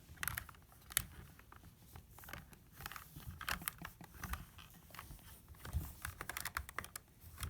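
Plastic LEGO pieces of a puzzle box clicking and rattling as it is handled and its parts pushed and twisted, in irregular light clicks.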